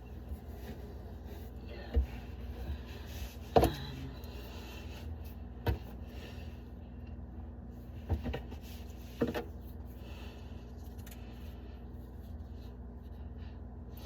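Sharp knocks and clunks of sink drain pipe parts being handled and taken apart in a cabinet, about six over the span, the loudest followed by a short falling squeak, over a steady low hum.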